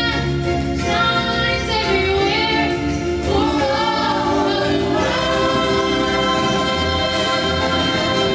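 Church choir singing a gospel-style Christmas song with musical accompaniment, held notes moving from phrase to phrase.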